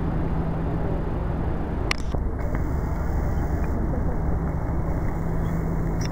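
Steady, unbroken rushing noise of the Iguaçu Falls waterfalls, with a single short click about two seconds in.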